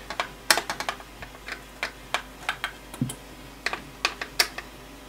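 Irregular sharp clicks and taps of a screwdriver and fingers working on the opened plastic top panel and button board of a Pioneer CDJ-800 MK2 DJ deck, with one duller knock about three seconds in.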